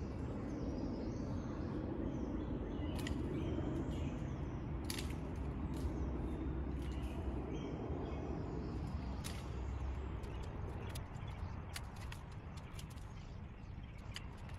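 Homemade wooden ladder of 2x4 rails ticking and knocking under a climber's steps: scattered sharp clicks about one to three seconds apart over a steady low outdoor rumble that eases after about ten seconds.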